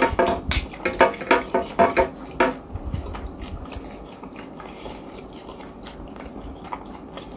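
A man chewing a mouthful of rice, with a run of short hummed vocal pulses, about four a second, over the first two and a half seconds. Softer mouth sounds and light clicks of a plastic spoon scooping rice from the plate follow.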